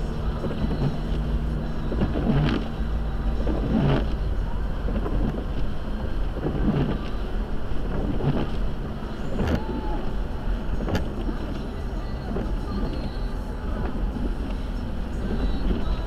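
Car driving on a snowy road: a steady low rumble of engine and tyres, with a few short knocks and clicks here and there.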